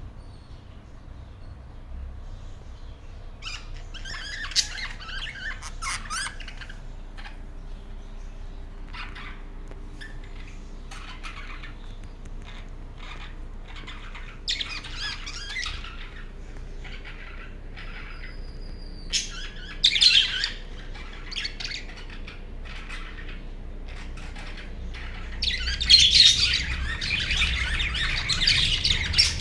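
A flock of budgerigars chirping and chattering in bursts, with quieter gaps between, rising to a loud, dense burst of calls near the end.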